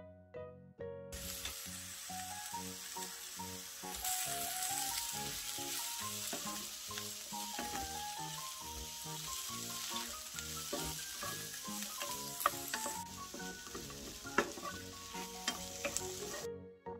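Sliced shiitake mushrooms, onion and carrot sizzling as they are stir-fried in a nonstick frying pan. The sizzle starts about a second in and cuts off shortly before the end, with a few clicks of a wooden spatula against the pan in the later part, over light background music.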